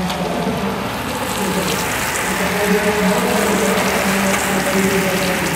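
Continuous hiss of racing-bike tyres throwing spray off a rain-soaked road as a bunch of riders passes, over a steady low hum.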